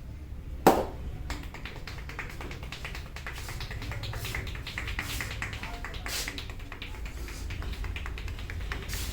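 Barber's hands tapping and snapping rapidly on the head and hair in an Indian head massage, with one sharp, loud crack just under a second in.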